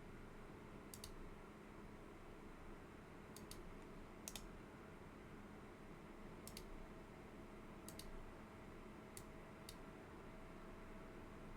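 Faint, irregular clicks of a computer mouse, about seven over the stretch, several in quick pairs, over a low steady room hum.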